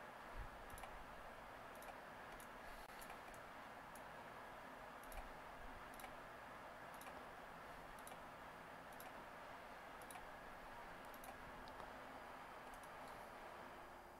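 Faint, irregular clicks of a computer mouse, about one a second, over a low steady hiss.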